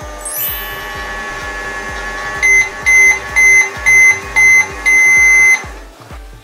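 Microwave oven running with a steady hum, then finishing with five short high beeps about half a second apart and one longer beep, after which the hum stops. Background music with a steady beat plays underneath.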